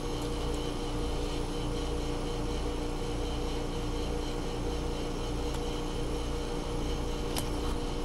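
Trane 17 SEER two-stage heat pump outdoor unit running steadily: a compressor hum with two steady tones over the condenser fan's rush. A single light click near the end.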